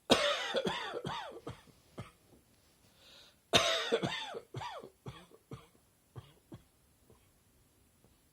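A person coughing in two rapid fits of several coughs each, about three and a half seconds apart, with a breath in before the second fit and two single coughs after it. It is an allergy cough, brought on by pollen tickling the throat and chest.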